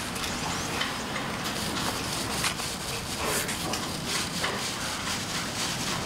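Work-yard ambience: a steady noise bed with scattered knocks and clatter from bricks being handled, and faint distant voices.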